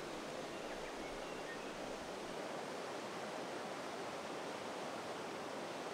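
River current rushing steadily over a shallow, stony riffle: an even, unbroken hiss of flowing water.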